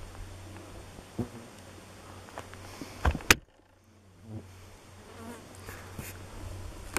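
Insect buzzing close to the microphone, a steady low drone, broken by a few sharp knocks; the loudest knock comes about three seconds in and is followed by a brief near-silent gap.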